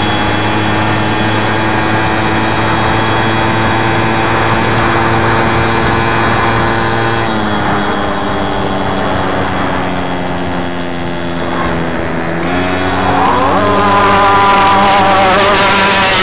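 Small two-stroke VéloSolex moped engines running at speed. The engine note drops in pitch twice as machines pass. In the last few seconds another engine rises in pitch and comes in louder.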